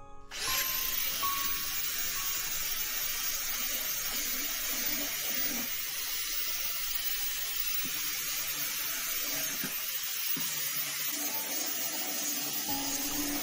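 A steady hiss of work noise, like a spray gun or a compressed-air blower, that starts suddenly about half a second in and runs on evenly.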